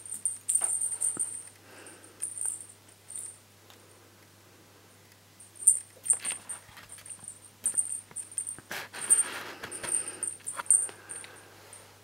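A kitten scrabbling and climbing about a cat tower: claws scratching and light knocks and thumps against the tower, with a sharp knock about six seconds in and a busier spell of scrabbling a few seconds later. A high-pitched tinkle comes and goes over it.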